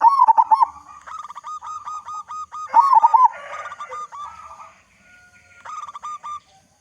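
Zebra dove (local perkutut) cooing in quick runs of short, rolling notes. The runs are loudest at the start and again around three seconds in, with a fainter run near the end.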